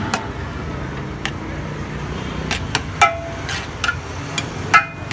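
Metal utensils clinking, with sharp knocks that ring briefly, about eight times at uneven intervals, the loudest near three seconds in and shortly before the end. A steady background din runs under them.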